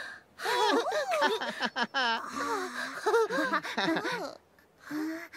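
Several Teletubby character voices making overlapping wordless exclamations and babble, with pitch swooping up and down. They fall silent about four and a half seconds in, before one short sound near the end.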